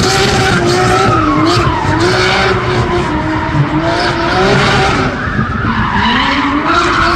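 Car engines revving up and down in a wavering pitch, with tires skidding on asphalt as the cars are driven hard through a street-racing stunt.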